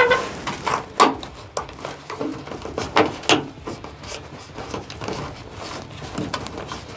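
Sheet-metal downspout and its bottom elbow being handled and fitted at the wall: a string of sharp clicks and knocks, the loudest about one second and three seconds in.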